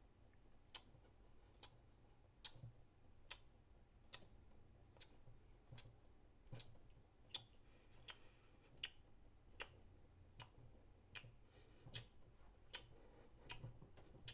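Ticking clock imitated with mouth clicks: single sharp ticks at an even pace, a little over one per second, faint against a quiet background.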